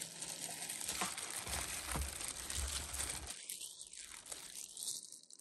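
Cubed dongchimi radish being tossed in red pepper seasoning by a hand in a plastic glove: the glove crinkles and the wet, coated radish pieces squish and shift against each other. It gets quieter a little past halfway.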